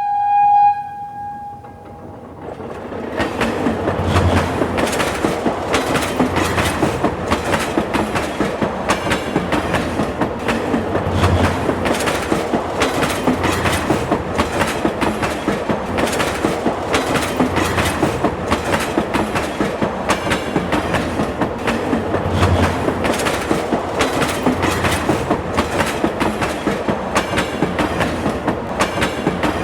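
A train sounds one short horn blast, then runs past with a fast, steady clickety-clack of its wheels over the rail joints.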